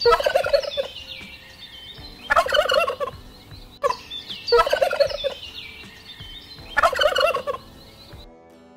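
A bird gobbling: four rapid, rattling gobbles about two seconds apart.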